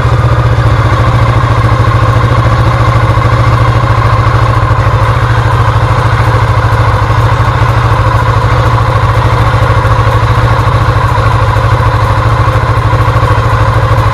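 Kawasaki Vulcan S 650's parallel-twin engine idling steadily through its stock exhaust, picked up close to the muffler outlet. A loud, even low note that holds the same pitch throughout, with no revving.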